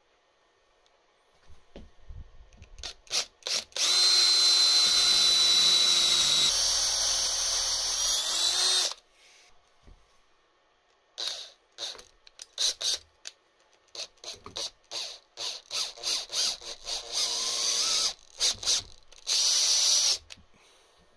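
Handheld power drill boring into a lathe's metal tailstock casting: a few light clicks, then one continuous run of about five seconds with a whine that shifts pitch partway through. After a pause comes a long string of short trigger bursts, and a final run of about a second near the end.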